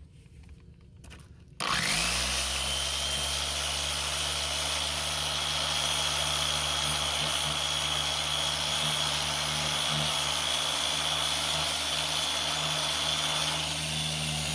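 Dual-action (DA) sander with 80-grit paper sanding fiberglass filler on welded car rocker-panel seams. It starts about two seconds in with a quick rising whine, then runs steadily with a high whistle over the rough sanding noise.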